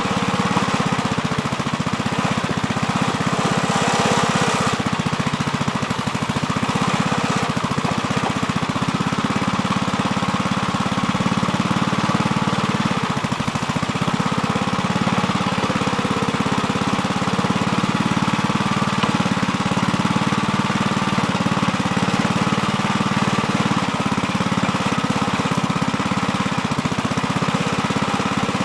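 Gravely Terramite backhoe's engine running steadily, with a hiss over it for the first few seconds.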